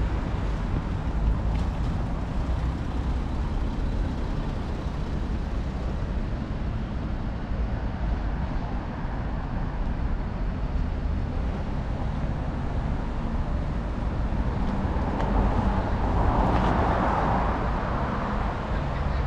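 Steady road traffic, with a louder passing swell near the end.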